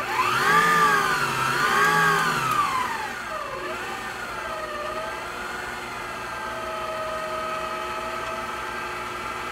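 FIMEI stand mixer's electric motor running empty on its test run. It starts suddenly and is pretty loud, with its whine swinging up and down in pitch as the speed changes over the first few seconds, then running at a steady pitch.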